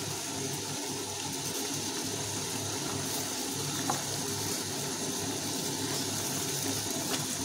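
Sugar syrup boiling hard in a steel pot with rasgullas cooking in it: a steady bubbling hiss, with a faint tap about four seconds in as a spatula stirs them.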